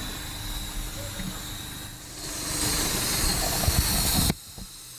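A 4x4 vehicle running, under a steady hiss that grows louder about two seconds in, then cuts off abruptly a little after four seconds.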